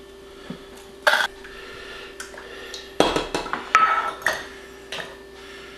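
Metal measuring cups knocking and clinking against each other and a saucepan. There is one sharp knock about a second in, then a clatter of several knocks with a short metallic ring a few seconds in, and a last tap near the end, over a faint steady hum.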